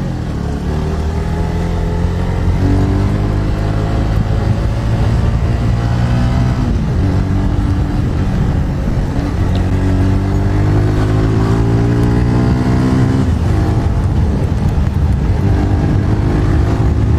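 Motorcycle engine pulling through the gears while riding: its pitch climbs steadily, then drops at each gear change, several times over. A steady rushing noise runs underneath.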